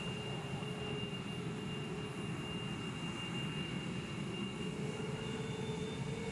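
F-22A Raptor's twin Pratt & Whitney F119 turbofan engines running steadily as the jet taxis: a constant jet rumble with a steady high whine on top, its lower tone rising slightly near the end.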